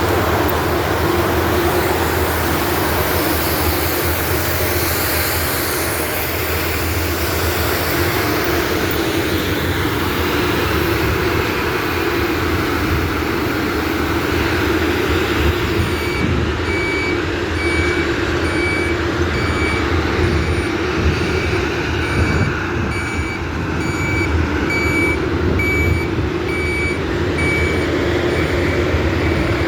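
Heavy diesel machinery of a road-milling crew running steadily with a deep engine hum. About halfway through, a vehicle's reverse alarm starts beeping at a steady pace, just under once a second, and stops near the end.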